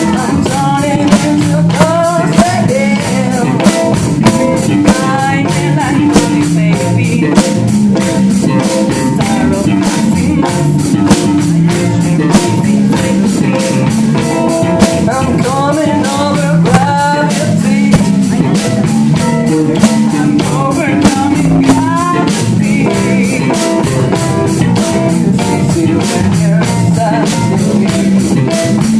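Rock band playing a song: a singer over a drum kit keeping a steady beat, electric guitar and bass.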